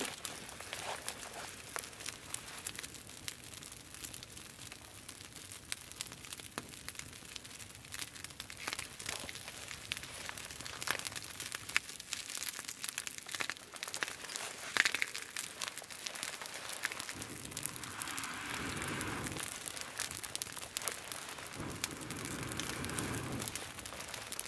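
Small campfire of sticks crackling, with scattered sharp pops, one louder pop about two-thirds of the way through. Near the end come two longer rushing sounds of a second or two each.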